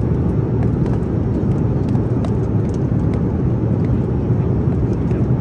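Steady low rumble of a moving vehicle heard from inside its cabin, with faint scattered ticks over it.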